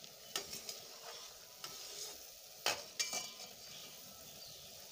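Sugar syrup bubbling in a steel pot while a flat metal spatula stirs it, scraping and knocking against the pot a few times, loudest about two and a half seconds in. The syrup is nearly ready, just starting to turn sticky.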